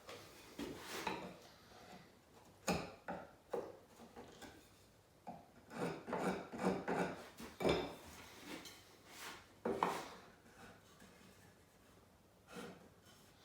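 Wood chisel paring away the last bit of waste wood the saw blade left: irregular scraping and rubbing strokes in bursts, with a few sharp knocks.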